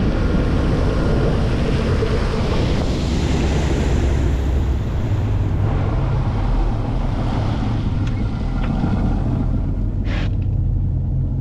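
Boat motor running steadily, with wind buffeting the microphone and water rushing past the hull.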